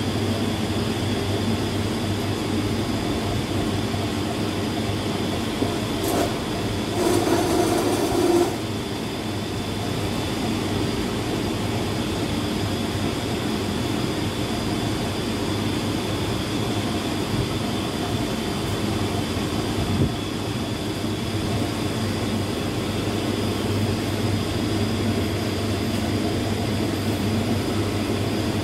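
Steady mechanical hum and rumble of running machinery, with a brief louder patch of noise about seven seconds in.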